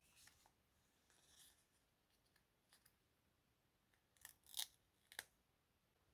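Scissors cutting paper: faint paper rustles, then three crisp snips about four to five seconds in, the last the loudest.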